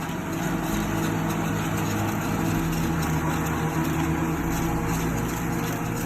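Two-row corn silage harvester at work, its engine running steadily with an even rushing noise over the drone.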